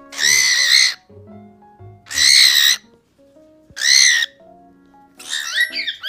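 A cockatiel screaming three times: loud, harsh calls each under a second long, about two seconds apart, over soft background music. Near the end, quick chirping chatter begins.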